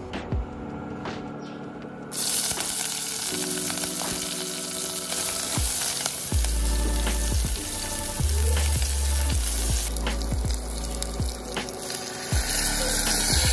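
Hot oil sizzling in a pot as curry leaves, pandan leaf and chopped aromatics are fried and stirred with a spatula: a tempering. The sizzle starts about two seconds in and carries on as a red spice mixture is poured in near the end.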